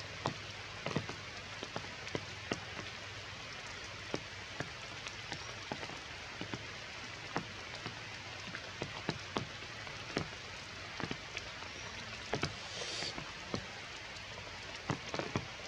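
Steady rain, with single heavier drops striking at irregular moments, sometimes several in quick succession.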